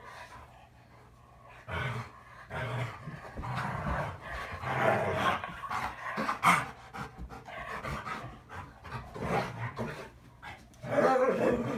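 Two dogs play-fighting, one an Airedale terrier, making irregular growls, grumbles and panting that sound like an old man.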